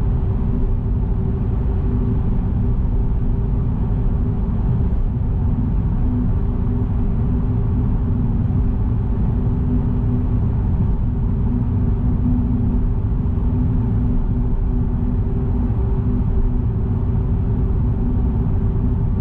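Car driving at a steady speed: a constant low rumble of road and engine noise with a steady hum.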